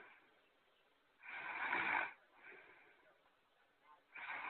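Snoring sound effect: a loud snore lasting under a second, followed by a softer, shorter one, with the next loud snore starting near the end.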